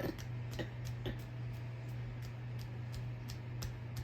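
Ceiling fan running, its motor humming steadily with a regular light ticking at about three ticks a second.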